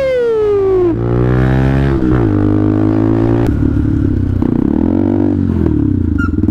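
Benelli TNT 125 motorcycle's single-cylinder engine and exhaust under way: a sharp rev right at the start falls away, then the note climbs again and drops at gear changes about two and three and a half seconds in, settling to a lower, wavering running note.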